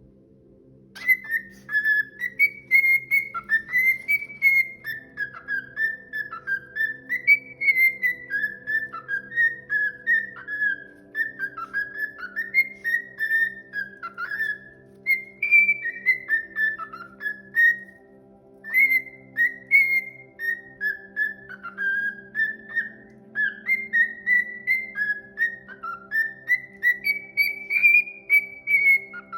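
A bird singing a long run of quick whistled notes that rise and fall, with a short pause about two-thirds of the way through, over a soft sustained music drone.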